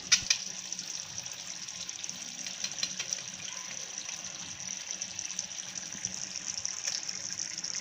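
Onion-tomato gravy simmering in a pan on the stove, a steady soft hiss with occasional faint ticks, as cubes of paneer are slid in from a plate. A brief knock comes right at the start.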